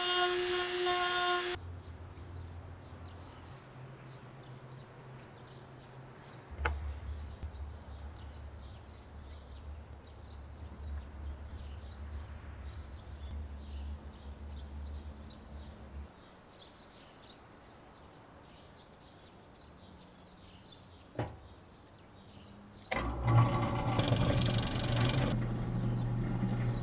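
A power router's high whine cuts off about a second and a half in, leaving a low machine hum with a couple of sharp clicks. Near the end a drill press starts up and bores into a block of pine.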